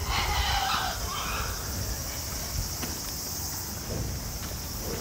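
A brief voice in the first second or so, over a steady high hiss and low background rumble.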